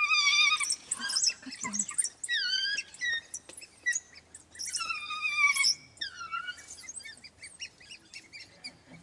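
African wild dogs giving their high, bird-like twittering calls: a run of short chirps mixed with several longer, wavering whines. They are begging calls, soliciting regurgitated meat.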